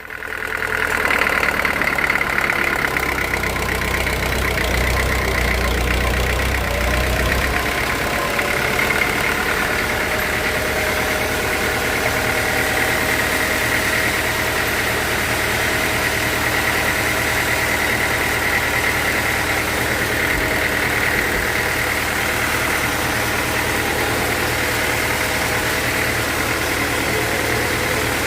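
Sawmill machinery running steadily: an engine-driven hum with a high steady whine that starts abruptly. A deep low rumble fades out after about eight seconds.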